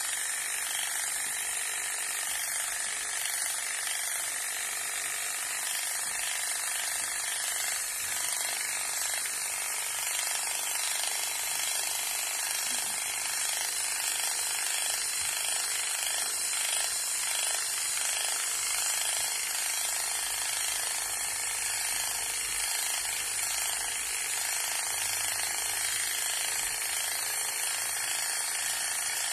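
Electric pet clippers buzzing steadily as they shave the fur from around a hot spot on a dog's head.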